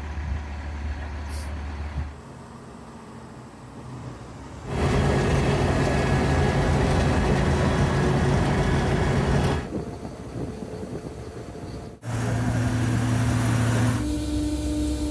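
Heavy diesel road-construction machinery and trucks running, heard as a series of short clips that cut abruptly from one engine sound to another; the loudest, from about five to ten seconds in, is a dense, even roar.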